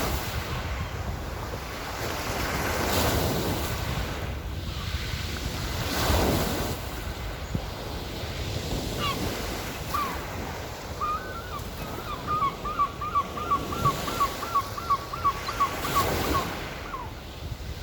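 Small Black Sea waves washing onto the shore in slow surges every few seconds. About nine seconds in a gull calls, then from about twelve seconds it gives a quick run of a dozen or so short cries, about three a second.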